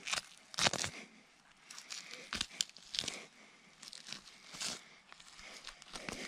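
A knife cutting through the opened hide and flesh along the back of a sambar deer carcass, heard as irregular short scraping strokes, the loudest about a second in.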